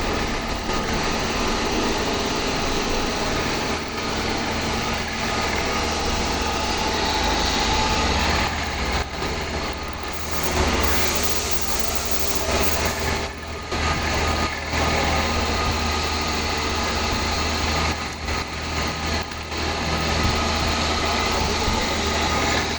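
Industrial machinery running steadily, a dense mechanical noise over a low hum.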